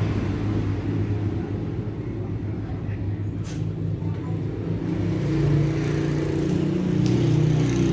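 An engine running with a steady low hum, its pitch shifting upward about five seconds in.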